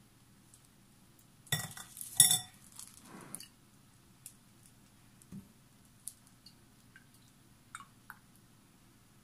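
Metal mesh strainer knocking against a glass mixing bowl: two sharp clinks with a brief ring about a second and a half and two seconds in, with smaller rattles just after. A few faint light clicks follow later.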